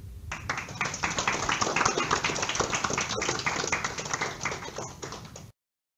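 Audience applauding, starting about a third of a second in and cutting off suddenly near the end.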